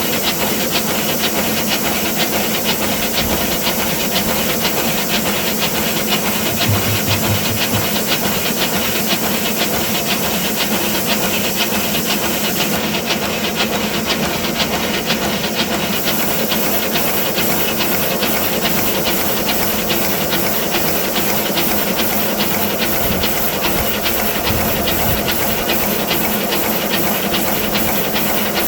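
5-inch gauge live steam model of a BR Standard Class 9F locomotive running in steam on a rolling road: loud steady steam hiss with fast, even exhaust beats.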